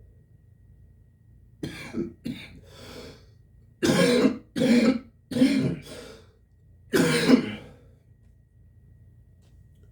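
A man's coughing fit: a few lighter coughs and throat clearing, then four loud, harsh coughs, the last after a short pause.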